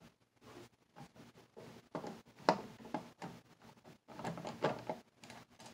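Screwdriver backing out the rear screws of a Digitech 2120 rack unit's case, with hand handling: irregular small clicks and scrapes, a sharper click about two and a half seconds in and a brief flurry of rattles near the end.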